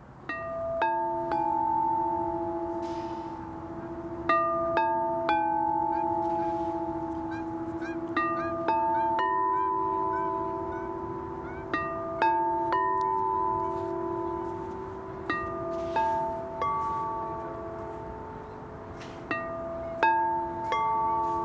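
Gentle instrumental music of slow, bell-like struck notes, each ringing on for a second or more and overlapping the next, making an unhurried melody over a steady low tone.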